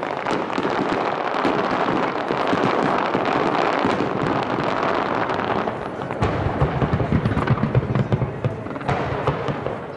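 Dense fireworks barrage: a continuous crackling and popping of many shells at once. From about six seconds in, rapid low booms of bursting shells take over.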